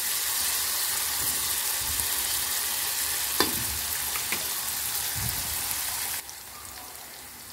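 Sliced onions sizzling in hot oil in a stainless steel frying pan, just put in to soften. A steady hiss with a couple of light taps, and the sizzle drops much quieter about six seconds in.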